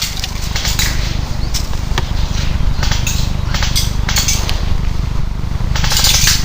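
Steady low wind rumble on the microphone, with irregular rustling crunches through it, the strongest about six seconds in.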